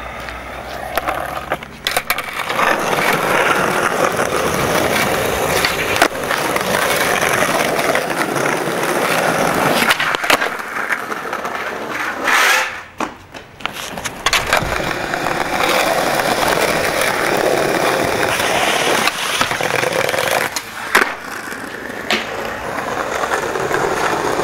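Skateboard wheels rolling over brick paving, a continuous rough rattling roll, with several sharp knocks of the board scattered through it.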